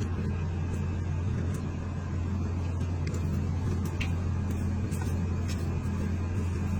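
A steady low motor hum, an engine running evenly without change.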